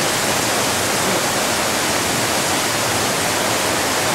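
Steady rush of a creek cascading through a narrow rock gorge: small waterfalls and rapids pouring into pools, a dense, even roar of falling water.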